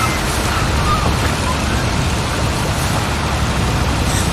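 Wind buffeting a phone microphone in a steady rumbling hiss, with a few faint, brief shouts and calls from spectators.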